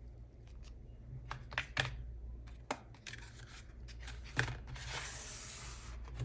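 Smartphone box and packaging being handled: several light taps and clicks, then a rustling, tearing sound of paper or plastic lasting about a second near the end.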